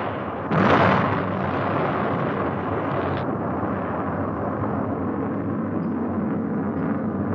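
Rocket blast: a sudden loud burst about half a second in, then a steady, dense rushing noise of rocket exhaust and explosion.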